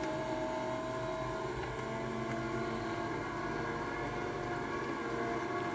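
Electric roller shutter motor running steadily as the shutter rolls up into its box, a constant hum with several steady tones.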